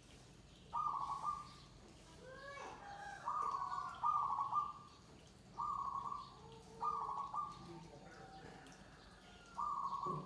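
Zebra doves (perkutut) cooing: six short, bright, quavering phrases spaced about one to two seconds apart, with softer gliding calls between them.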